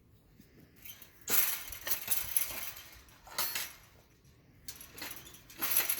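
Hand-forged metal gate latch being tried on a gate: metal clinks and rattles, with a sharper ringing clank about three and a half seconds in and more clatter near the end.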